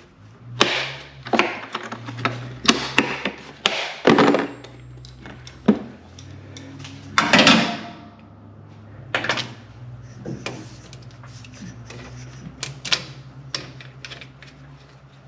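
Irregular clicks, clacks and knocks of hand tools and A/C hose fittings being handled, with a longer scrape about seven seconds in, over a low steady hum.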